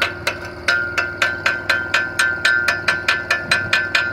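Chipping hammer striking a fresh stick weld on steel to break off the slag: rapid, even strikes about four a second, each with a short metallic ring. A steady low hum runs underneath.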